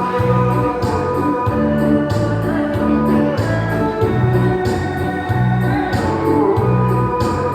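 Dance music playing, with a bass line pulsing about twice a second under sustained higher tones.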